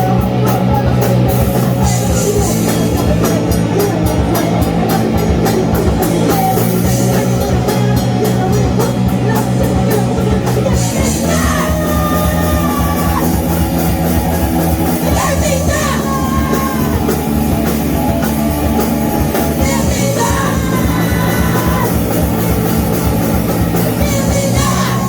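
Live rock band playing a loud song with drums, bass and guitar, a sung vocal line coming in about halfway through.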